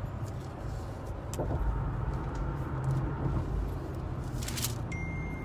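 Steady low rumble of a car heard from inside the cabin, with a brief rustle of handling about four and a half seconds in and a thin, steady high tone coming in near the end.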